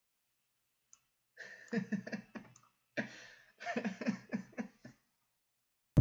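A low, mumbled voice, broken into short stretches, after about a second and a half of near silence.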